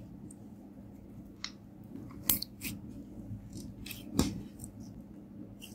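Glitter-filled clear slime being kneaded and squeezed by hand, giving scattered sticky clicks and pops, the two loudest about two seconds apart. A low steady hum runs underneath.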